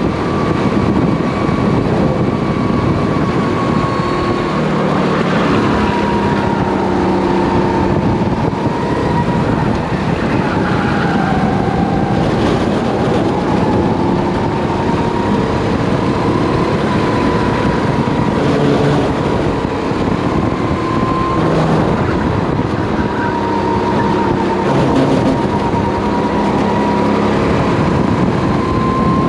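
Rental race kart's engine running hard on track, heard onboard from the driver's helmet, its pitch dipping and climbing again and again through the corners, over a constant rushing noise.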